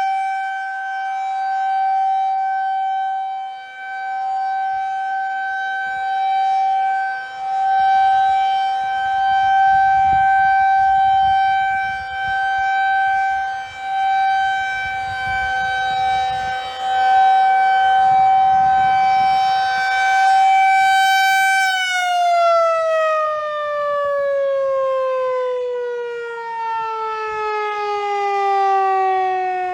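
Federal Signal 2001 rotating electromechanical tornado siren sounding a steady single-tone test wail that swells and fades in loudness. About two-thirds of the way through it shuts off and winds down, its pitch falling steadily.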